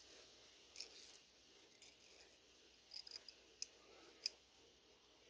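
Faint, scattered light metallic clicks and ticks as a thin piston ring is worked over and into the grooves of a piston by hand. Otherwise near silence.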